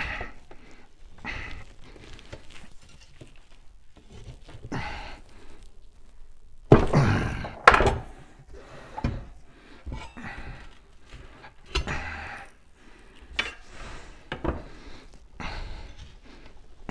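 Steel tire irons prying a tire bead up over a spoked motorcycle rim: irregular knocks and clanks of the irons against the rim, with rubber scraping as the bead is levered. The loudest knocks come about seven and eight seconds in.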